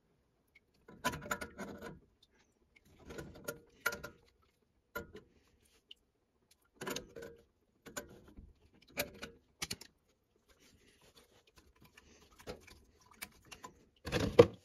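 Channellock tongue-and-groove pliers clicking and scraping on a brass boiler pressure relief valve as it is turned loose from its threaded fitting, one grip at a time. Scattered metallic clicks come every second or two, the loudest cluster near the end.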